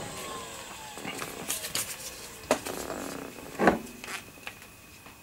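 Old Conner IDE hard disk spinning down, its whine falling steadily in pitch over the first two seconds or so. Over it come light clicks and plastic clatter from cables and connectors being handled, with a louder knock a little over three and a half seconds in.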